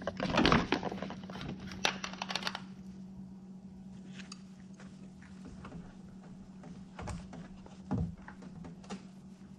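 Handling noise from the camera being moved and set down: a run of clicks and rustles for the first two and a half seconds, then a few scattered light taps over a steady low hum.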